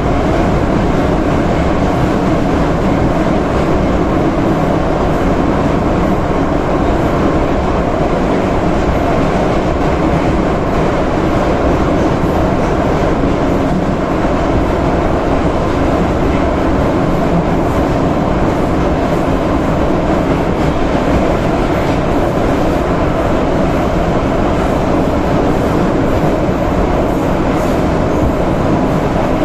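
Inside a Soviet-type 81-717.5/714.5 metro car running at speed through a tunnel: a loud, steady noise of the train's wheels and running gear on the rails.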